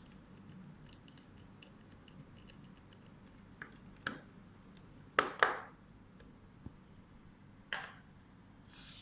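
Small clicks and taps of hands handling a mini PC's plastic hard-disk case and its screws. Faint ticks are scattered through it, with sharper clicks about four seconds in, a loud pair a little after five seconds, and one more near eight seconds.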